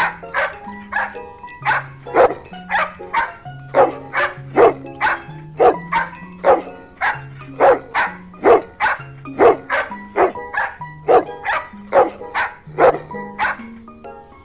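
Golden retriever barking in a long run of short, even barks, about two a second, over background music.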